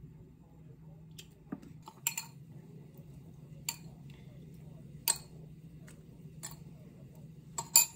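Kitchen utensils clinking against dishes, a few sharp separate clinks a second or two apart, over a faint low hum.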